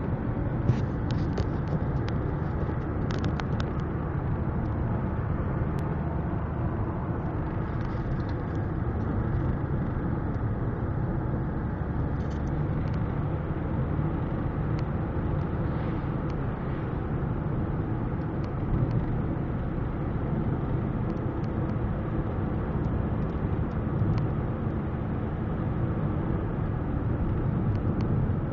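Steady low road and wind noise inside the cabin of a Volkswagen Golf towed on a tow rope at close to 100 km/h, with a few faint ticks now and then.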